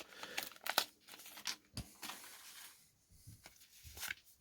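Wax paper wrapper of a baseball card pack being torn open and crinkled, the dense crackling easing after about a second into quieter handling with a few sharp clicks.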